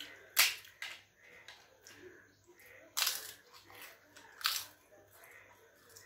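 Crisp papad being snapped and bitten: a few sharp crunches, the loudest about half a second in, more around three and four and a half seconds in.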